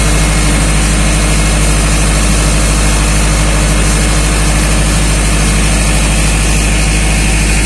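Diesel engine of a truck-mounted loader crane running at a steady speed, a constant low hum with no revving, as it powers the crane during unloading.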